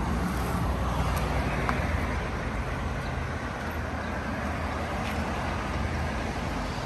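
The 1972 Chevrolet C10's small-block V8 idling steadily with a low growl.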